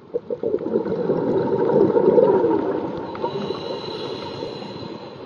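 Underwater gurgling and bubbling water noise, swelling to its loudest about two seconds in and then slowly fading.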